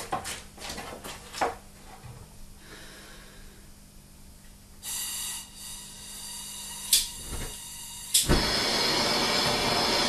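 Hand-held gas torch being lit to heat a steel gear ring for a shrink fit. There are a few light metal clicks at the start, then a short hiss of gas about five seconds in and a sharp click near seven seconds. The flame catches with a pop about eight seconds in and then burns with a steady hiss that grows louder.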